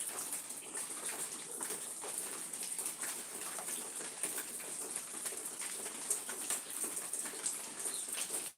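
Birds calling in outdoor ambience, over a steady high-pitched hiss with many short, light ticks scattered through it.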